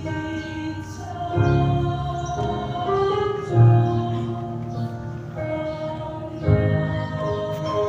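Mixed choir of women and men singing slow, held chords. The chord changes about every two to three seconds, over a strong low bass part.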